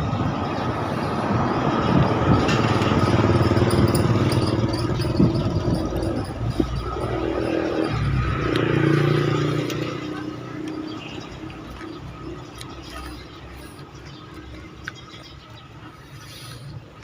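A motor vehicle passing on a nearby road: its engine and tyre noise swells over the first few seconds, then fades away in the second half.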